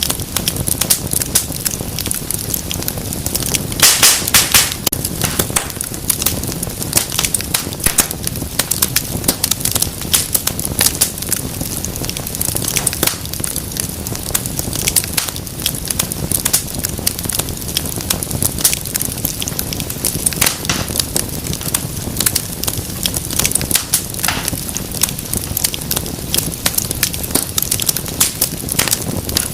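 Fireplace fire crackling steadily with many small snaps, and a run of louder pops about four seconds in.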